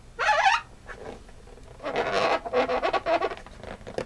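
Squeaks of a marker drawing on an inflated latex balloon: a short squeak right at the start, then a run of squeaks from about two seconds in.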